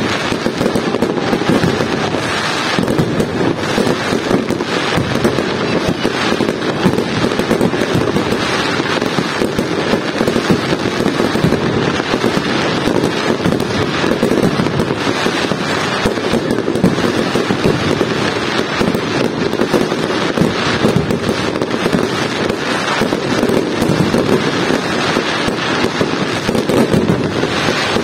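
Aerial fireworks barrage: many shells bursting over one another, with dense crackling from the stars, an unbroken stream of bangs and crackles.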